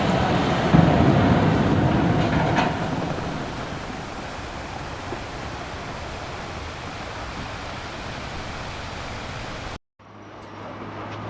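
Steady mechanical rumbling noise, loudest in the first three seconds with a sharp knock about a second in, then settling lower. Near the end it cuts off abruptly, and a fainter sound with a low hum follows.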